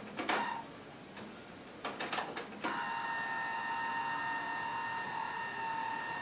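Pioneer CT-M6R six-cassette changer's transport mechanism clicking and clunking as it engages, then a steady mechanical whine as the tape fast-winds in reverse.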